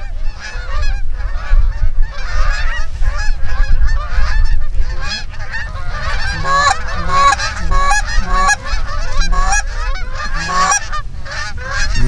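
A large flock of Canada geese honking in flight, many calls overlapping without a break, with clearer single honks coming about twice a second in the second half. A steady low rumble runs underneath.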